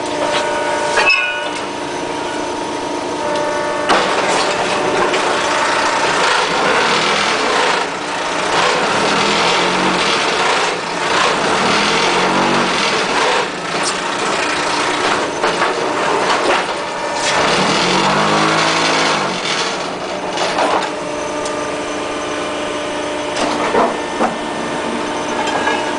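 Concrete block making machine running through a moulding cycle: a steady machine hum with clanks, and a louder harsh rattling from about four seconds in to about twenty seconds in as the mould is vibrated to compact the concrete.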